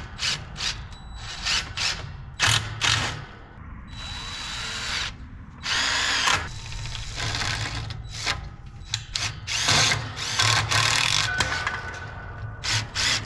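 Cordless drill-driver driving screws into a wooden roof truss: a string of short trigger bursts with a few longer runs of a second or more.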